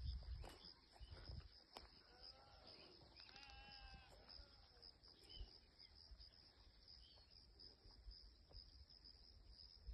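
Faint bleating from livestock: one wavering call about two seconds in, lasting about two seconds, over a steady high-pitched drone.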